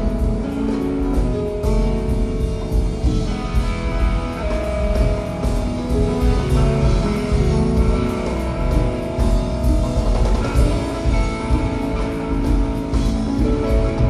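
Live band music: electric guitar playing held, singing melodic notes over drums with cymbals and bass.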